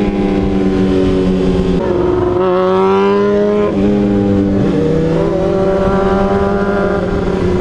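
Sport motorcycle engines running at road speed, the bike riding just ahead super loud; the engine note steps in pitch a few times, around two seconds in and again around four to five seconds in.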